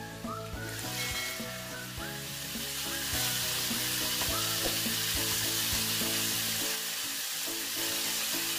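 Chicken sizzling as it is sautéed in hot oil in a pan, a steady frying hiss that swells about a second in and is louder again from about three seconds on. Background music plays underneath.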